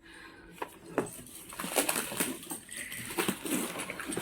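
Packaging being pulled open by hand: plastic wrappers crinkling and rustling, with sharp clicks and taps, getting busier after the first second.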